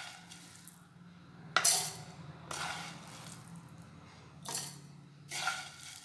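Spoonfuls of dry-roasted whole spices (coriander seeds, cardamom, cloves, cinnamon) tipped into an empty stainless-steel mixer-grinder jar, rattling against the steel three times.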